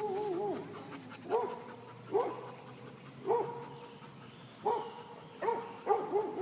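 A dog whining: a run of short, high, wavering whines, with a longer warbling whine near the end.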